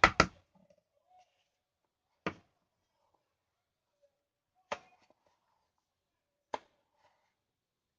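Rapid sharp knocking that stops just after the start, then three single sharp taps spaced about two and a half seconds apart.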